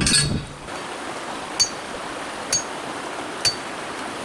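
A metal post driver strikes a copper-plated steel grounding rod once with a ringing metallic clang and a thud. A steady hiss follows, with light metallic pings about once a second.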